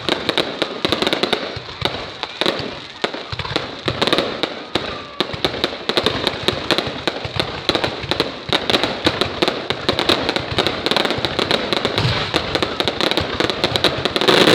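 Fireworks and firecrackers going off in a dense, continuous barrage of rapid crackling pops, many per second, with no break.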